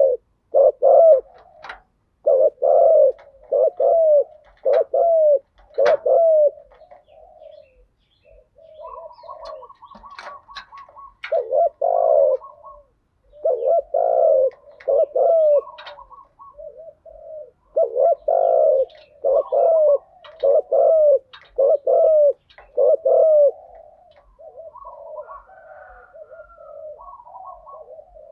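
Spotted doves cooing in repeated phrases of short, low, rounded notes, with brief pauses between phrases. A higher, quicker run of notes comes in about a third of the way through and again near the end.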